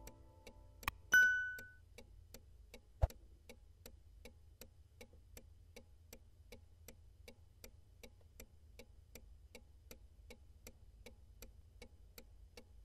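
Soft clock-like ticking, about three ticks a second. About a second in, a click and a bright bell ding sound from the subscribe-button animation; the ding is the loudest thing. A single low knock follows about three seconds in.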